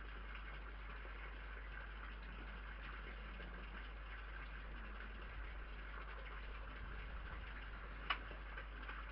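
Steady hiss and low hum from a security camera's microphone, with one sharp click about eight seconds in.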